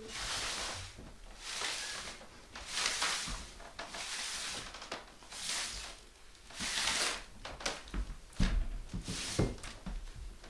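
Loose paper sheets rustling and shuffling underfoot on wooden stage boards, about one rustle a second, with a few dull thuds on the wooden floor near the end.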